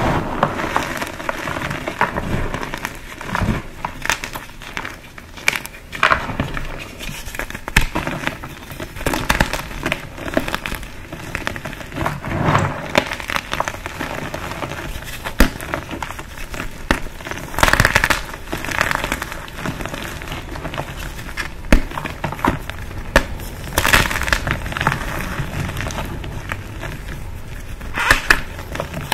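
Green dyed pasted gym chalk blocks being crushed, crunching and crumbling in a steady run of crisp crackles. Louder crunches come every few seconds.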